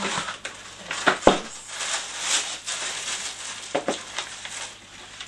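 Crinkling and rustling of white packing wrap while a cardboard delivery box is handled, with a few sharp knocks from the box, the loudest about a second in.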